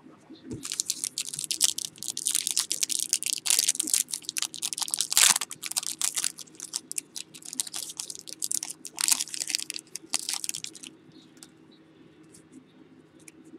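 Plastic wrapper of a trading-card pack crinkling and crackling as it is torn and peeled open, for about ten seconds. After that, only a few light ticks from the cards being handled.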